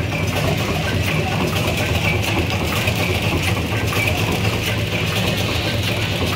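Wet-wipe folding and packing machine running: a steady low machine hum with faint repeating ticks from its mechanism.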